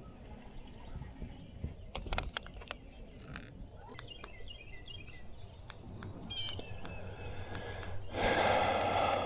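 Outdoor lake ambience with small birds chirping, a few sharp clicks, and a louder noisy sound lasting about a second near the end.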